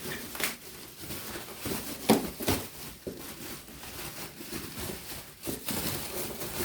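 Hard plastic washing-machine parts being handled: a few sharp knocks and clicks over low rustling.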